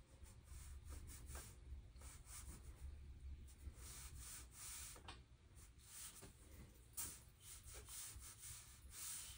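Faint scratchy brushing of a small round watercolour brush stroking paint onto textured watercolour paper, in a series of short, irregular strokes.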